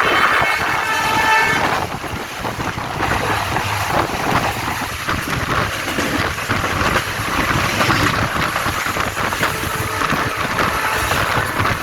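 Express train's horn sounding a steady multi-tone blast that cuts off about two seconds in, then the rumble and rapid wheel clatter of the train running through at full speed.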